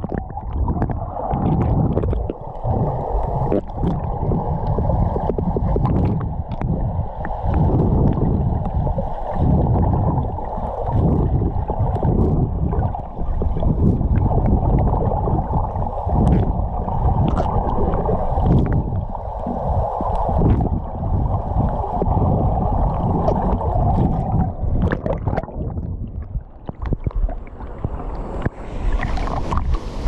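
Underwater sound through an action camera's waterproof housing: a steady, muffled rush of moving water with bubbles and knocks against the housing. Near the end the camera breaks the surface and the sound turns to open-air splashing and the rush of the waterfall.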